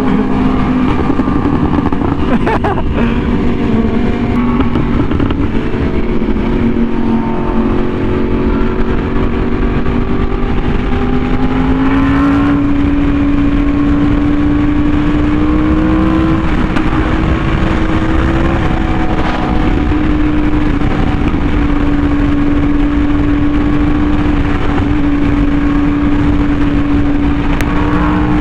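Yamaha R1M's crossplane inline-four running hard through an SC Project exhaust while riding at speed, over a constant rush of wind. The engine note holds steady, rises in pitch about twelve seconds in, then stays level.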